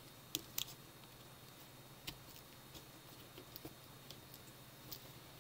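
A handful of faint, sharp clicks and taps: fingers and a small tool handling a laptop LCD panel's display-cable connector while lining it up, over quiet room tone. The loudest click comes near the start.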